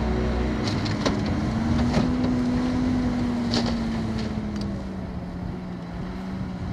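Dump truck's engine running steadily while its hydraulic hoist tips the bed and the load of earth slides out. The engine note rises a little about two seconds in, then slowly sinks; a few sharp knocks sound along the way.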